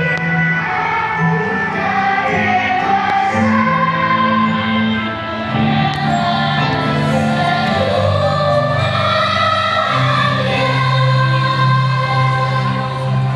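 A choir singing long held notes in slowly changing chords.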